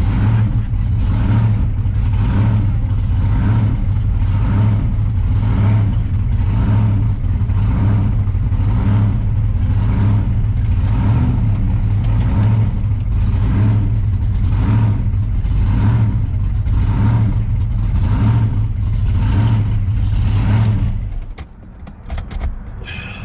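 Supercharged V8 of a blown 1957 Chevy gasser idling loudly, its note surging in an even lope about every three-quarters of a second. It shuts off about 21 seconds in.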